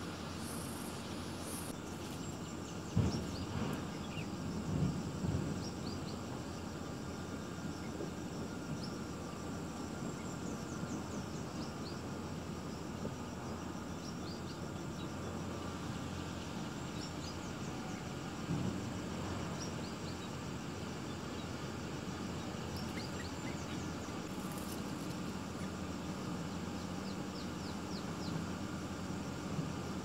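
Steady outdoor background noise with faint, short, high chirps scattered through it, and a few low thumps about three, five and eighteen seconds in.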